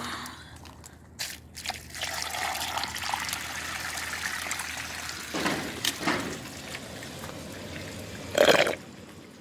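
Water trickling and running through a small handmade clay model toilet as it flushes. A few clicks come first, the steady running starts about two seconds in, and there are a few louder surges near the middle and near the end.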